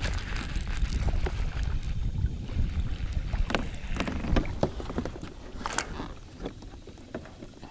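Wind buffeting the microphone, with scattered sharp knocks and clatter from handling on a plastic fishing kayak. The wind eases after about five seconds.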